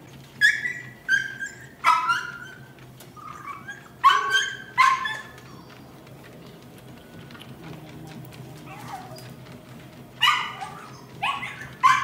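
A dog barking in short, sharp barks: about six in the first five seconds, a pause, then three more near the end, over a low steady hum.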